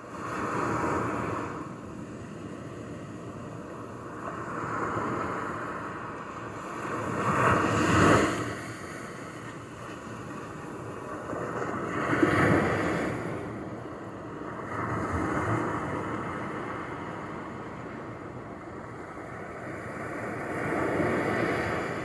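Small ocean waves breaking and washing up a sand-and-shingle shore, surging and receding every few seconds, with the strongest surges about eight and twelve seconds in.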